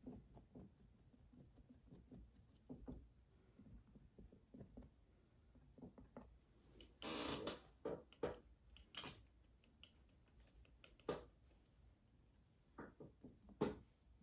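Faint taps and dabs of a palette knife working thick acrylic paint into a textured canvas, with a brief scraping rasp about seven seconds in and a few sharp clicks later, the loudest near the end.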